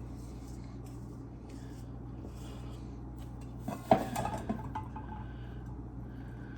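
A metal kitchen utensil knocks and clinks against a dish a few times, in a short cluster about four seconds in, over a low steady background hum.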